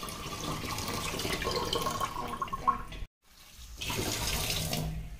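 Tap water running and splashing into a stainless steel bowl of chopped vegetables as they are rinsed by hand. The water sound cuts out abruptly about three seconds in and comes back a moment later.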